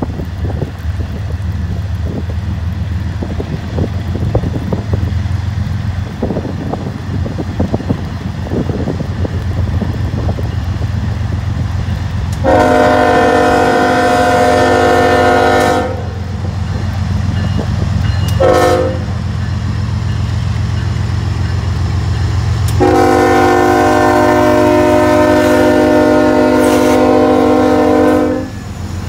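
A CSX freight train's diesel locomotives rumble as they approach. About halfway through, the lead locomotive's multi-chime air horn sounds a long blast, then a short one, then another long one held almost to the end: the horn signal for the grade crossing.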